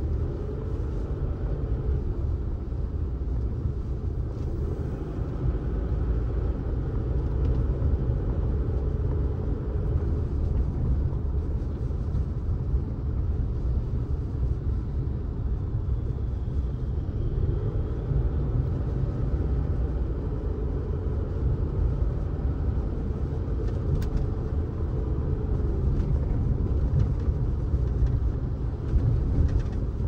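Car driving, a steady low rumble of engine and road noise. Twice a humming tone rises, holds and falls away, once near the start and again for several seconds past the middle.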